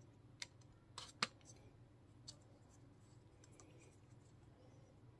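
A few faint clicks from the Osaka OS 550 tripod's plastic head being handled and adjusted by hand, the sharpest about a second in; otherwise near silence.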